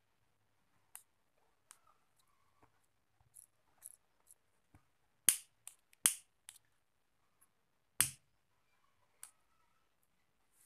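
A handheld plastic lighter clicking as it is struck again and again: irregular sharp clicks, the three loudest around the middle.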